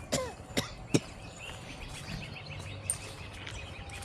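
A few sharp clicks in the first second, then a bird chirping in a quick run of short, repeated high notes over a low background rush of outdoor noise.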